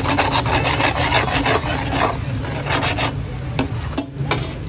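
Flat metal spatula scraping and stirring food on a steel tawa griddle in rapid, repeated strokes, over a steady low hum.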